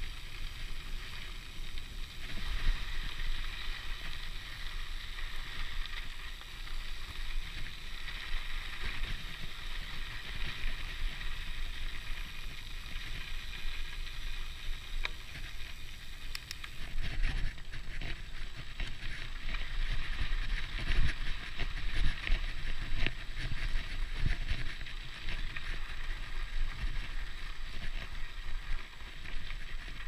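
Mountain bike rolling along a dirt track. The Hope Pro 4 rear hub's freehub ratchets with a fast, steady buzz over the rumble of the tyres on the dirt and some wind on the microphone. The rumble grows a little louder after about halfway.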